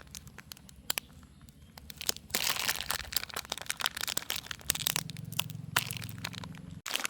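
Crunching and crackling handling noise: many sharp clicks, with a denser crunching stretch about two and a half seconds in.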